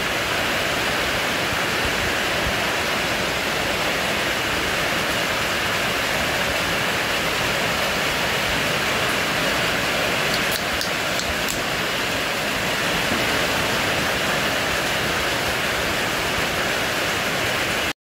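A steady, even hiss that starts and stops abruptly, with a few faint clicks about ten seconds in.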